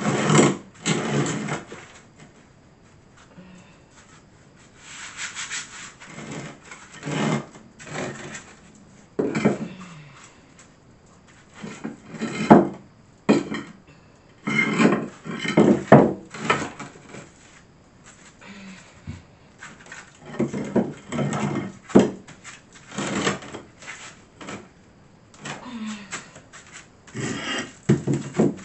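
Heavy old cement floor tiles being slid across a bare subfloor and set down against one another: gritty scraping in irregular bursts, with an occasional sharp knock as tile meets tile.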